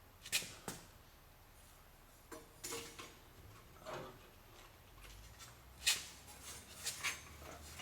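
Scattered light metallic clicks and taps, irregularly spaced, from hand tools, bolts and a gasket being handled while an exhaust manifold is fitted.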